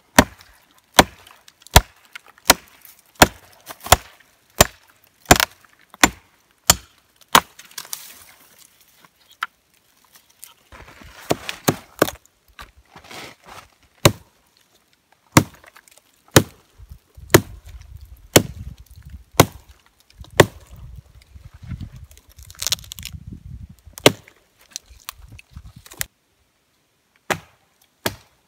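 Marbles 700DB double-bit hatchet chopping into a fallen dead log: about a dozen sharp chops, roughly three every two seconds, then a pause with rustling, then more chops about a second apart.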